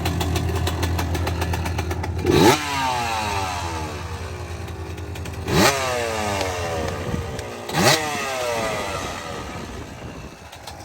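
Off-road bike engine running, then revved in three quick blips a few seconds apart, the pitch sweeping up sharply and falling back each time. The sound fades away near the end.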